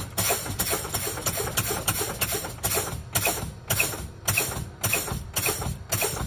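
Truck air brakes being fanned: the brake pedal is pumped about twice a second with the engine off, and each application ends in a short sharp burst of exhausting air. This bleeds the air tanks down toward the 60 psi low-air warning.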